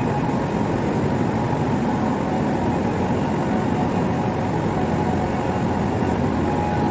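Steady machinery noise, an even rumbling din with a faint steady hum running through it.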